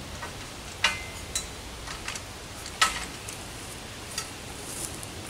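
Metal clanking as a treestand's ladder section is set onto the sleeves of its metal platform: two sharp clinks with a short ring, about a second in and about three seconds in, and a few lighter ticks.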